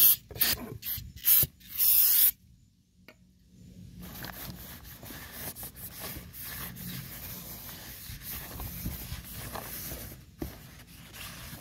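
An aerosol can of brake cleaner sprays in a few short hisses and then one longer one, about two seconds in. A paper towel then rubs steadily across the face of a new brake rotor for several seconds, wiping off the factory grease.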